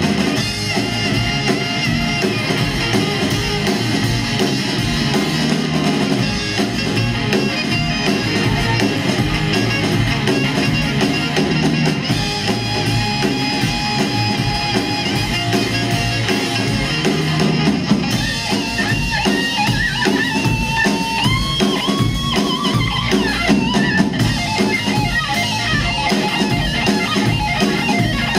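Live rock band playing an instrumental passage, with electric guitar and drum kit. A held lead melody steps upward partway through.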